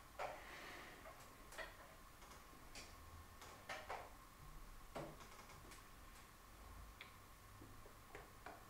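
Quiet room with scattered sharp clicks, ending with a wooden shogi piece being set down on the board and the button of a digital chess clock being pressed near the end. A faint steady tone runs underneath.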